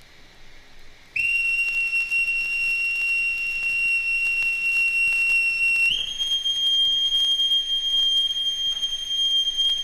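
A steady high-pitched whistle tone that starts abruptly about a second in and is held without wavering. About six seconds in it steps up slightly in pitch and holds again.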